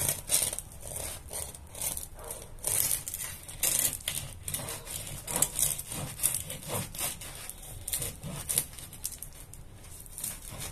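A knife sawing back and forth through a crusty homemade Italian loaf on a wooden board, the crisp crust crackling and rasping in many short, irregular strokes.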